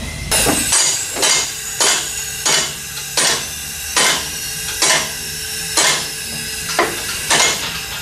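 Metal striking metal: a run of about eleven sharp clanks, each with a short ring, roughly one every two-thirds of a second.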